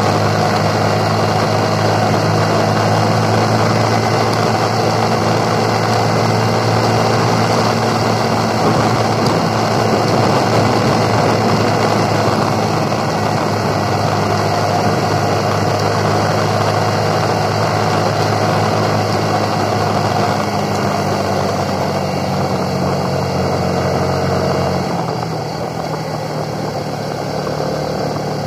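Motorcycle engine running steadily under way, with a constant low engine note and road noise. Near the end the engine note drops lower and quietens.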